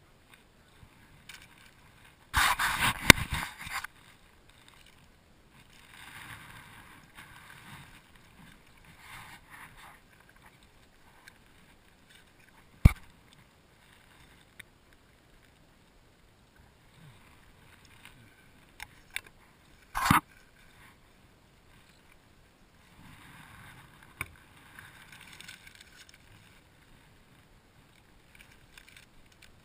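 Water sounds from a sit-on-top fishing kayak on the move: a loud splashing, noisy burst early on, softer washes of water, and two sharp knocks on the plastic hull, about seven seconds apart.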